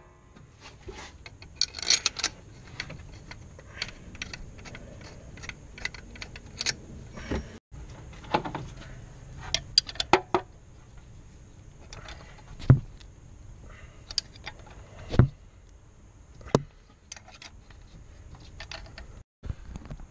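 Scattered metallic clicks, clinks and knocks of hand tools and parts being worked around a newly fitted alternator in a car's engine bay, with two sharp louder knocks in the second half.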